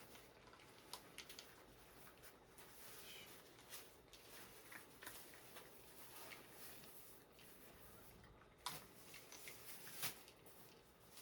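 Faint scraping and light clicking of cat litter being scooped, with two sharper knocks near the end.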